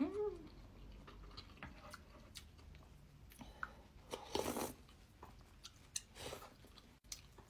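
A person eating instant noodles close to the microphone: soft, wet mouth clicks of chewing, with two short hissy bursts about four and six seconds in.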